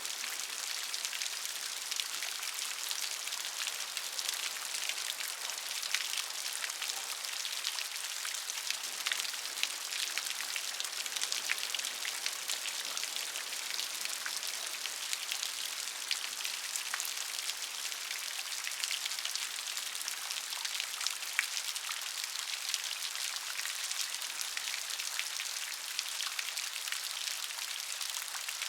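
Steady rain: a dense, even hiss of falling rain with many individual drops striking a surface at irregular moments.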